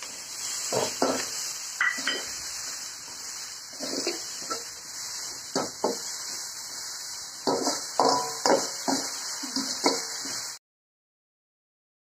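Sliced onions sizzling in hot oil in an aluminium kadai while a slotted metal spoon stirs them, scraping and clinking against the pan; the onions are half-fried and being browned. The sound cuts off suddenly about ten and a half seconds in.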